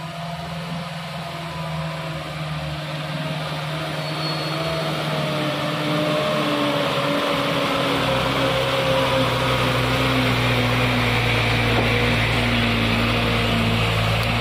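Mitsubishi Fuso Canter truck's diesel engine labouring up a slippery mud slope. It grows louder as the truck draws near over the first several seconds, then runs loud and steady, its pitch sagging slightly under the load.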